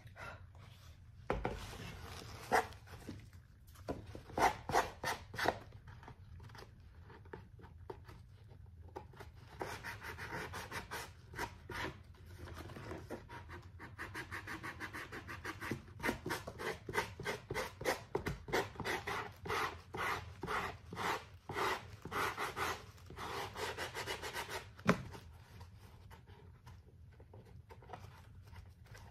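Sandpaper rubbing back and forth over the paper-covered edges of a papier-mâché hat in quick, rhythmic strokes. It comes in spells with short pauses, the longest running through the middle, and there is a sharp knock near the end.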